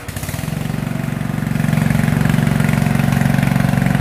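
The 14 hp Kawasaki engine of an OREC Rabbit RM82 ride-on mower running. It grows louder over the first second and a half, then runs steadily with an even pulsing beat.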